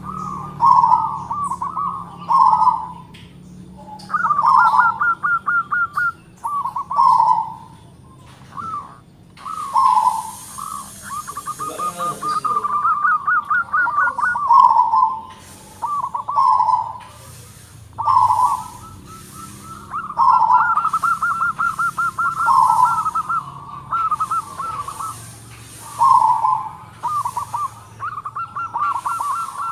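Zebra dove (perkutut) cooing over and over, about one phrase every two seconds: each phrase is a quick run of closely spaced notes followed by a few rounder, deeper coos.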